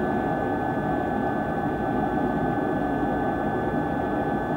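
Steady in-flight cockpit noise of a DC-9 airliner on approach, as on a cockpit voice recording: an even hiss and rumble with a thin steady high tone running through it, sounding dull with no highs.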